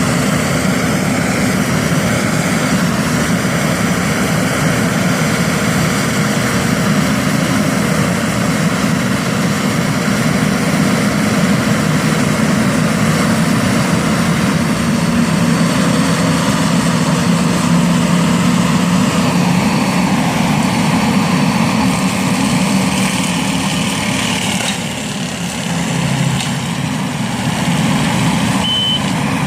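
Bobcat skid steer running steadily while working with a stump grinder; its engine note drops briefly near the end. Just before the end, its reversing beeper starts sounding.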